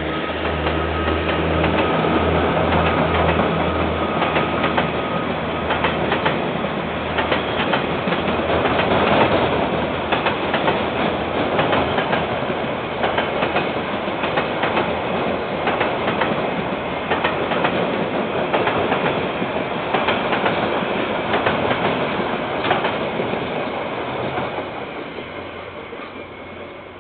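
Diesel-hauled container freight train passing. The locomotive's engine hum is heard for the first few seconds, then the steady rolling of the container wagons along the rails, with wheel clicks over the joints, fading away near the end.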